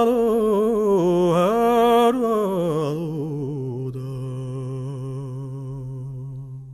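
A woman singing the closing phrase of a Georgian folk song. Her voice wavers with vibrato and falls in pitch, then holds a long low final note that fades out at the end.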